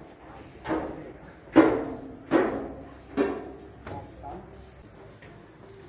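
Steady high-pitched drone of insects. Over it come five sharp knocks, each ringing briefly, about 0.8 s apart during the first four seconds; the loudest is about a second and a half in.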